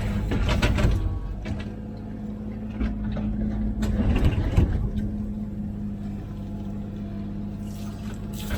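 Komatsu PC16 mini excavator's diesel engine running steadily while it digs, with louder rough bursts of digging work about half a second in and again about four seconds in.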